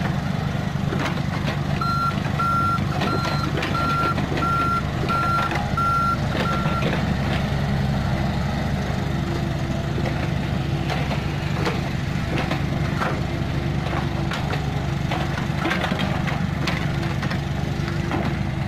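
Komatsu PC45 mini excavator's diesel engine running steadily as it digs, with clanks and knocks from the bucket and tracks in the second half. From about two seconds in, a backup alarm beeps evenly, about three beeps every two seconds, for some five seconds and then stops.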